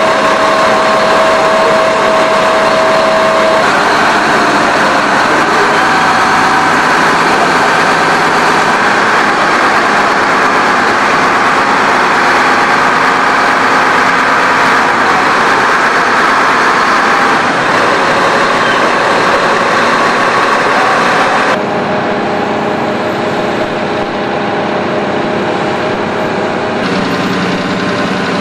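Engine of a Hyster heavy forklift running steadily. The sound shifts abruptly a few seconds in and twice more in the last third.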